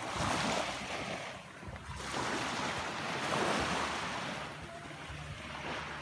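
Sea waves washing onto a beach, the surf swelling and ebbing twice, with wind rumbling on the microphone.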